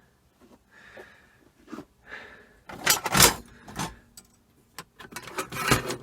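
Brass clock parts and mechanisms clinking and clattering as they are handled and rummaged through: a few separate clicks, then louder bursts of clatter about three seconds in and again near the end.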